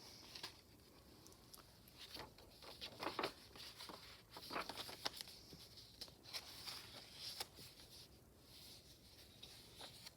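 Faint rustling and crinkling of paper as the pages of a thick handmade paper journal are turned and handled, with a few light ticks.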